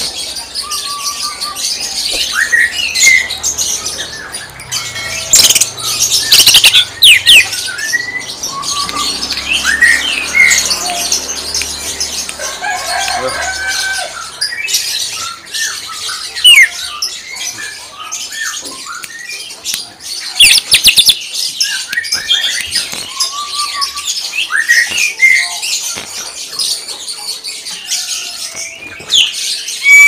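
Caged male green leafbird (cucak ijo) singing: a busy run of varied whistles and chirps, broken by several very loud, sharp rapid-fire bursts, the 'tembakan' song that bird keepers prize.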